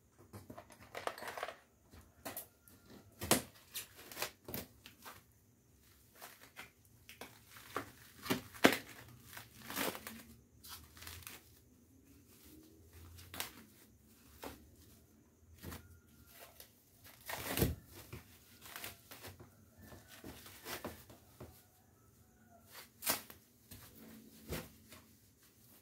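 Plastic stretch wrap and packing tape being torn and crumpled off a wrapped engine part, irregular rustling with sharp crackles and snaps.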